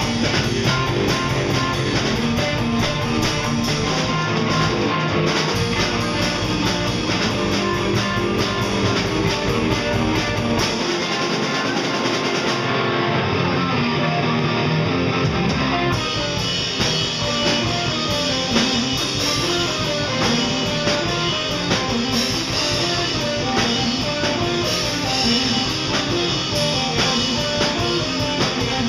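Live rock band playing an instrumental passage on electric guitars. The bottom end drops away for a few seconds about midway, then the full sound comes back.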